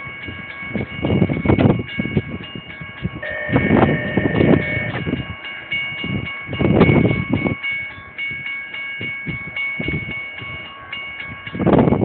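Nathan K5LA five-chime air horn on the lead SD40-2 locomotive of a CSX freight, blowing a long chord that stops at the end, over the rumble of the passing train.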